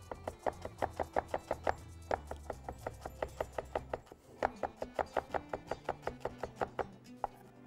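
Knife chopping green onions on a cutting board in quick, even strokes, about five a second, with a short pause about four seconds in, slowing off near the end.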